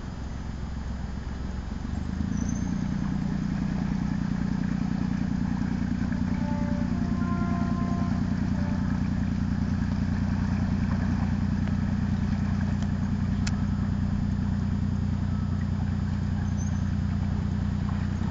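A canal boat's engine running steadily at low revs, a low even pulsing, growing louder about two seconds in and then holding steady.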